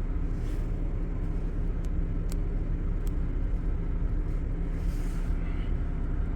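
BMW car engine idling steadily, a constant low rumble and hum, with a few faint clicks in the middle.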